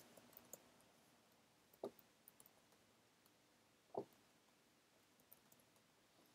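Near silence: room tone with a few faint clicks, two of them a little clearer, about two and four seconds in.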